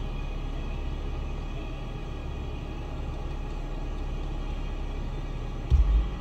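Steady low rumble of a car idling, heard inside its cabin, with one sudden loud deep thump near the end.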